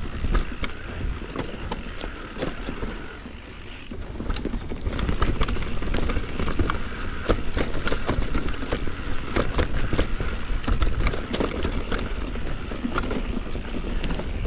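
Mountain bike riding fast downhill over roots and rocks: the tyres rumble on the dirt while the chain, frame and suspension clatter with many sharp knocks. It eases for a moment about three to four seconds in and cuts off suddenly at the end.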